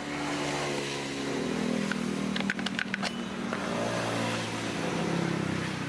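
Small two-stroke chainsaw engine running unevenly at idle after being primed with fuel, its pitch wavering, with a few sharp plastic clicks about halfway through as its top cover is taken off.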